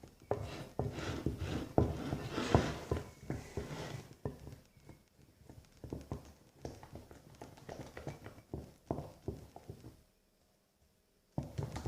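Homemade slime made from thick glue being mixed and worked while it is still being activated: a run of irregular sticky clicks, several a second, that stops about ten seconds in.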